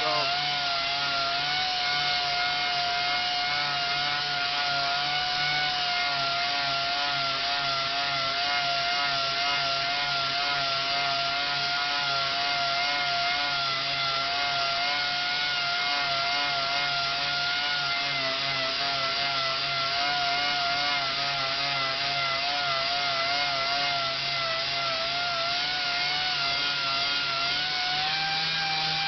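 Random orbital (DA) sander running continuously while sanding a scratch out of a Corian solid-surface countertop: a steady motor whine over the rasp of the abrasive, its pitch wavering slightly as pressure on the pad changes, with a short rise in pitch near the end.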